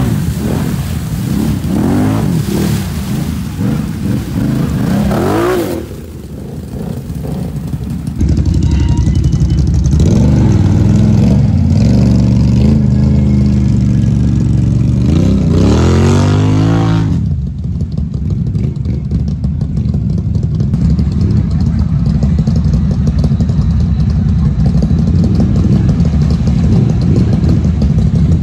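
ATV engines revving hard and running through deep mud water, rising and falling in pitch several times in the first few seconds. A Can-Am Renegade's V-twin pulls through with a couple of rising revs, then runs on at a steadier drone while churning the water.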